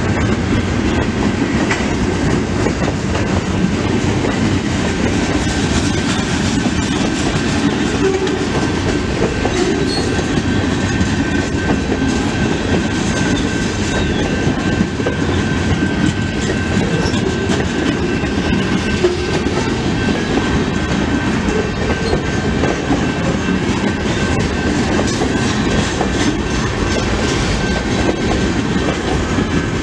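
Freight train rolling past at a level crossing: a steady rumble and clatter of steel wheels over the rail joints, with the crossing's electronic bell ringing throughout.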